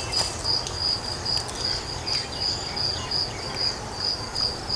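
A cricket chirping steadily, short high chirps about four a second, over a faint low background hum.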